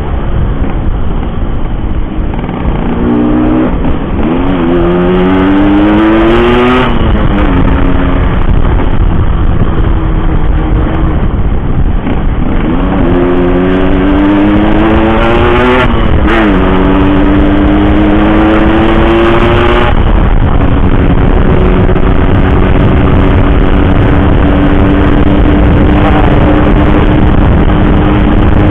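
Yamaha RX King's single-cylinder two-stroke engine pulling hard under a rider, its pitch rising through the gears and dropping twice at upshifts, then running at a steady cruising speed. Wind noise on the microphone underneath.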